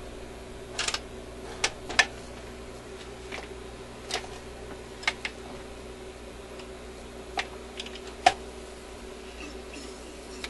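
Symphonic portable record player starting its play cycle on a 45: a steady hum from the running player under a series of irregular mechanical clicks and clunks from the changer mechanism as the tone arm swings over onto the record.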